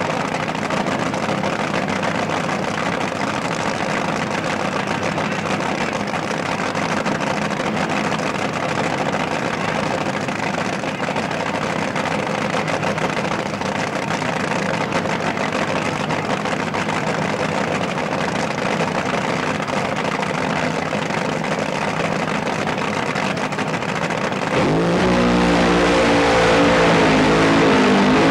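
Supercharged nitro-burning top fuel drag racing engines running steadily at idle. About 25 seconds in, an engine opens up much louder, its pitch wavering up and down, as a car does its burnout.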